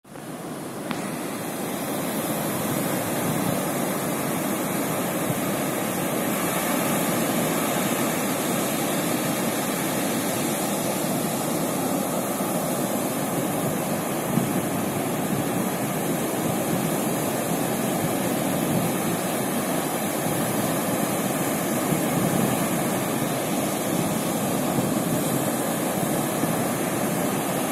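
Ocean surf washing onto a sandy beach, a steady rushing noise that fades in over the first couple of seconds.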